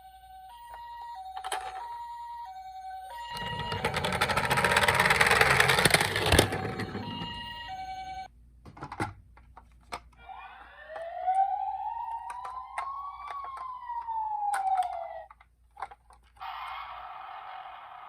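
Toy ambulance's electronic siren playing the two-note hi-lo 'pee-po' call, drowned about three seconds in by a loud rattling rush that ends in a sharp knock. Later a siren tone sweeps up and then back down in one long wail, and near the end a steady buzzy tone starts.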